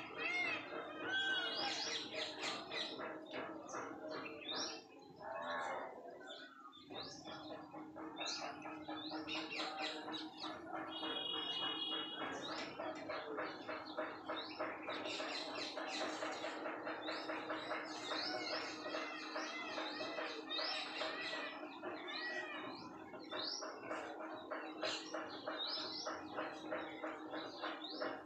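A dense chorus of small birds chirping and twittering, many short rising chirps repeated over and over without pause.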